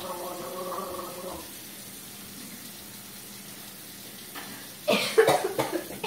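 Tap water running into a sink with a steady whine, shutting off about a second and a half in. A few sharp, loud bursts follow near the end.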